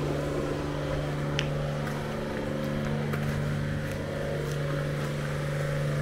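An engine running steadily, a constant low hum with overtones. A brief high chirp about a second and a half in.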